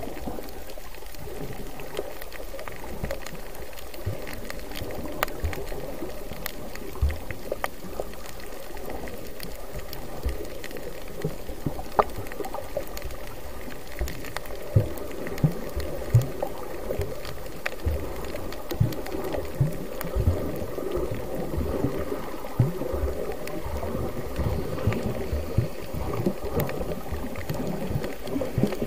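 Muffled underwater sound picked up by an action camera below the surface: a steady water rush with scattered short low thumps and faint clicks.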